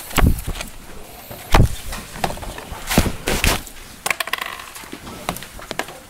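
Handling noise at a whiteboard: several dull thumps and knocks, the loudest about a quarter second, a second and a half and three seconds in, with lighter clicks and taps between them.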